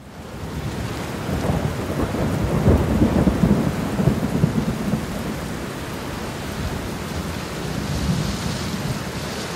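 Rain falling steadily with a long, low rumble of thunder, fading in at the start. The rumble is heaviest from about one to five seconds in, then eases off and leaves the rain.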